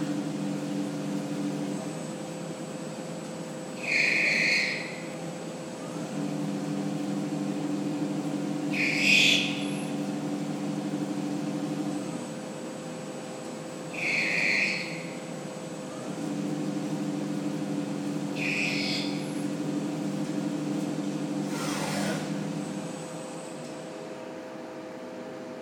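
CNC machine tool running a machining cycle: a steady hum with lower motor tones that switch on and off every few seconds, and a short hiss about every five seconds. Near the end a falling whine, as the machine winds down, and the sound settles to a quieter hum.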